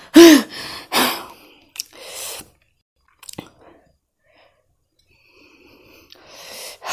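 A woman eating a mouthful of very spicy noodles: a short voiced "mm"-like sound, then breathy exhales and chewing with a few small mouth clicks, quiet for a couple of seconds in the middle.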